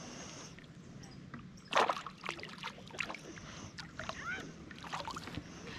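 Knocks and rustles in a small fishing boat, the loudest about two seconds in, with faint voices in the background.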